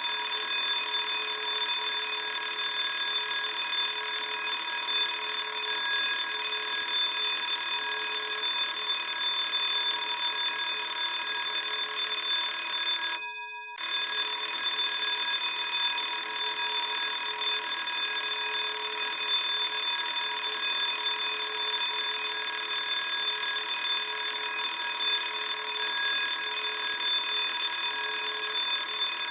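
Classic school bell ringing continuously with a steady, unbroken ring. About 13 seconds in it dies away for under a second, then starts again abruptly.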